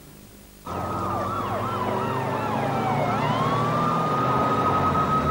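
Several police car sirens cut in abruptly about a second in. A rapid warbling yelp runs over a slower wail that sweeps down, then rises again and holds, with a low vehicle rumble beneath.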